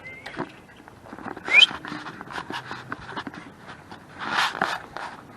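A dog making a short rising whine about a second and a half in and a louder breathy huff near the end, among scattered clicks and rustling.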